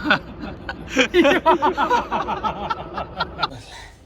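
People laughing, a quick run of short voiced bursts that dies away about three and a half seconds in.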